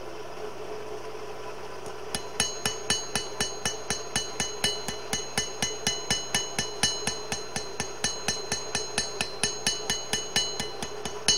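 Blacksmith's round-peen hammer striking hot spring steel on an anvil to draw out a knife edge. After about two seconds of a steady hum, a fast, even run of ringing blows, about four to five a second.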